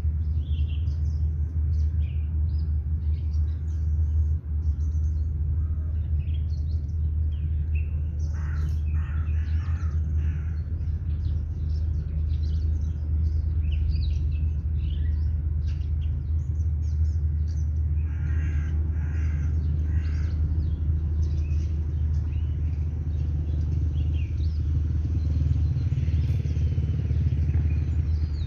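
Birds chirping and calling off and on over a steady low rumble, with busier bursts of calls about a third and two thirds of the way through.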